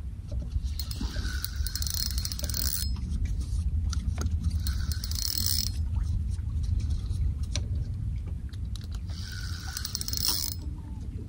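Fishing reel whirring in three bursts of one to two seconds each, a gear-and-ratchet sound, over a steady low rumble.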